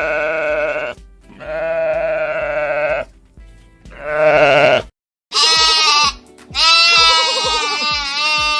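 Five long, wavering bleats in a row, the last two higher-pitched, from a sheep or goat.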